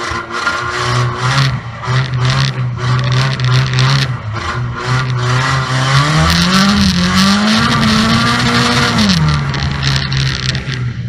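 Banger racing car's engine heard from inside its stripped cabin, running steadily, then revving up about six seconds in, holding the higher revs for about three seconds and dropping back. Frequent knocks and rattles from the bare shell come through the whole time.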